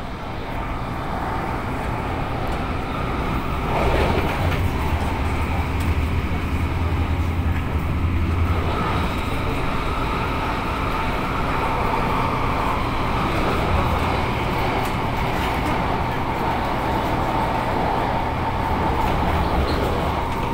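Electric passenger train running along an elevated track, heard from inside the carriage: a steady rumble of wheels and motors. From about halfway a steady whine runs under it.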